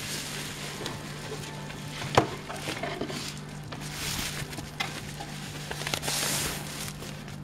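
Bubble-wrap packaging crinkling and rustling as the wrapped power supply is handled and lifted out of its cardboard box, with a sharp click about two seconds in and louder bursts of crinkling toward the end.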